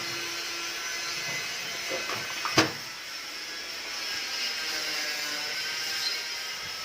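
One sharp knock about two and a half seconds in, with a few lighter clicks before and after it, over a steady hiss.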